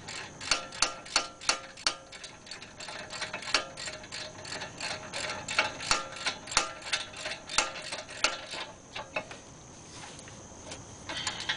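Hand ratchet clicking as it runs in the caliper bracket mounting bolts on a front disc brake, about two to three clicks a second, dying away about three quarters of the way through.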